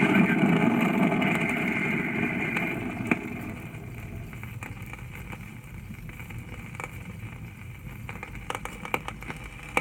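Rocket launch noise fading away over the first four seconds or so. It leaves faint record surface hiss with scattered clicks and pops, several of them near the end.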